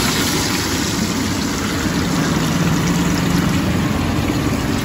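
Oil bubbling and sizzling steadily as chicken deep-fries in a wok, over a low engine hum of road traffic.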